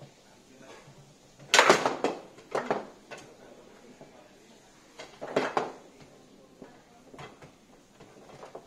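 Foosball table in play: sharp clacks and knocks of the ball, the player figures and the rods striking. A quick flurry of clacks comes about a second and a half in and another around five seconds in, with single knocks between.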